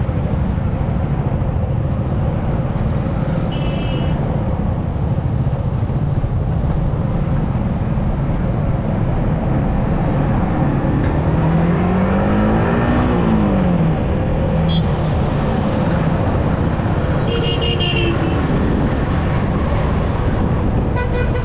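Motorcycle ride in heavy traffic: a Yamaha R15M's single-cylinder engine running with steady road and wind noise. Its note rises and falls once a little past halfway through, and short vehicle horn toots sound twice.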